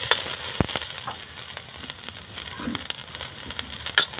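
Chopped onion and green chillies crackling as they fry in hot mustard oil in a kadhai, with a metal ladle stirring and a couple of sharp clinks against the pan, one about half a second in and one near the end.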